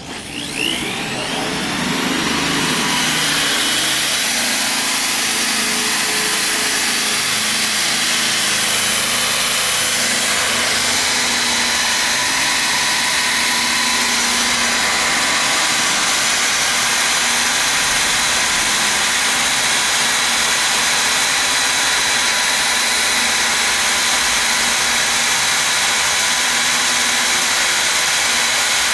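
Milwaukee Magnum 0302-20 1/2-inch corded drill spinning up over the first couple of seconds with a rising whine, then running steadily at full speed.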